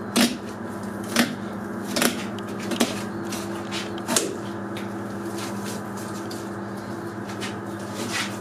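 Boning knife cutting a deer's backstrap away from the carcass on a butchering table: a handful of short sharp clicks and knocks, scattered irregularly, over a steady low hum.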